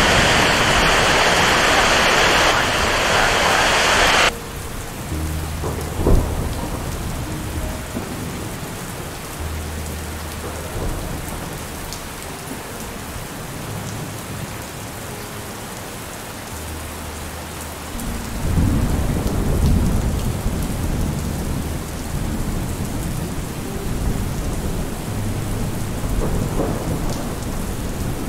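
Rain falling: a loud, heavy downpour hiss for about four seconds that cuts off suddenly, then lighter rain with deep low rumbles, a sharp crack about six seconds in, and a louder rumbling stretch around eighteen to twenty-one seconds.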